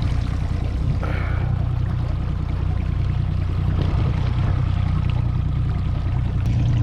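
Small boat's outboard motor running steadily at trolling speed, a constant low hum, with water washing along the hull.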